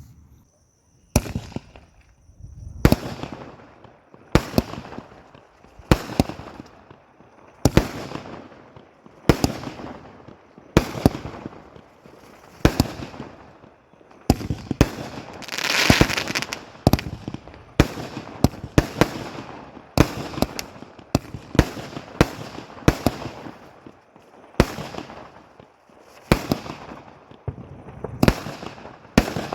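A 30-shot multi-colour aerial firework cake firing shot after shot, about one every second and a half, each a sharp bang that rings and fades away. About halfway through, one burst is louder and longer, with a hiss.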